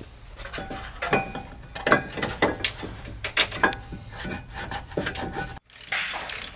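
Steel brake caliper mount bracket clinking, knocking and scraping against the hub and rotor as it is fitted in place by hand: a run of sharp metallic clinks with short ringing. Near the end the sound breaks off suddenly, and a rougher rasping noise follows.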